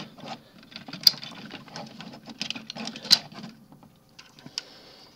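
Hard plastic parts of a Transformers action figure clicking and rattling as its arms and legs are worked off by hand, with two louder clicks about a second in and about three seconds in.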